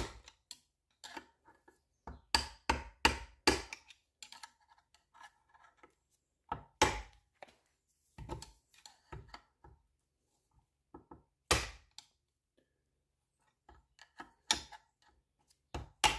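Sharp metal taps and knocks on a Bosch K-Jetronic fuel injector held in a bench vice, as its pressed-on air-shrouding cap (the "top hat") is worked off. A quick run of about five taps comes about two seconds in, then single knocks or short groups of them a few seconds apart.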